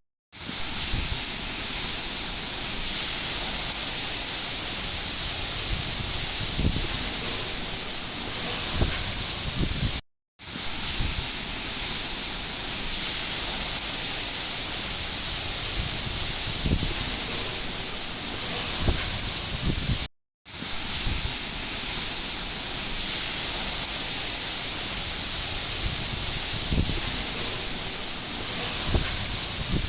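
Steady hiss of heavy rain, looped about every ten seconds with a short dropout to silence at each repeat, and a few soft low thuds in each loop.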